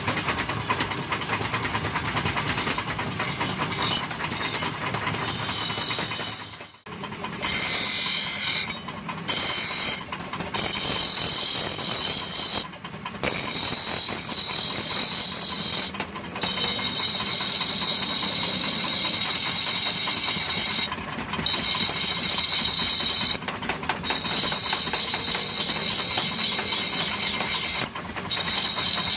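Forged steel axe head being ground on a shaft-driven abrasive wheel: a steady, hissing grind of steel against the stone that breaks off briefly now and then as the blade comes off the wheel.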